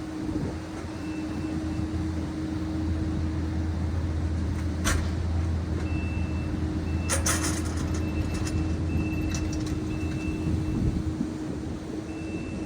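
Heavy machinery engine running steadily, with a few short high beeps and sharp knocks or clanks about five and seven seconds in.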